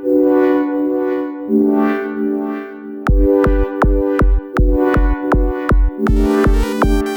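Electronic house track: held, brass-like synthesizer chords, then a steady kick drum enters about three seconds in, about three beats a second, and a quick arpeggiated synth line joins near the end.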